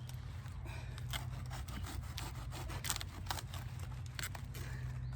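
Cabbage plants being harvested from a garden bed: irregular crackling, tearing and rubbing of stiff leaves and stems, over a steady low hum.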